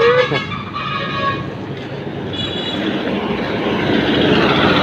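A vehicle horn sounds for about a second at the start. Then a heavy log truck approaches on the highway, and its engine and tyre noise builds steadily toward the end.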